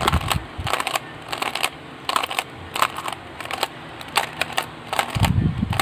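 A Cyclone Boys magnetic Skewb puzzle being turned, a run of sharp plastic clicks a few times a second as its corners turn and snap into place. A low muffled thump near the end.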